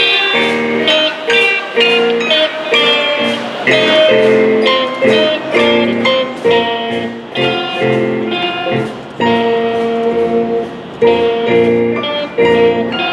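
Live instrumental music from a student band, with amplified guitars prominent, its notes changing in a steady rhythm.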